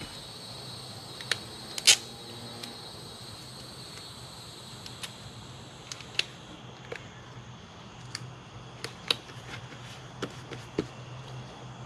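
Scattered sharp clicks and taps from hands working on a cardboard-wrapped target box, the loudest about two seconds in. Under them a steady high insect trill, which fades out about halfway through, and a low steady hum.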